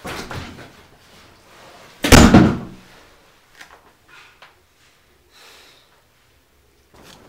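An interior door slams shut about two seconds in. A shorter, quieter noise comes at the start, and a few faint ticks follow.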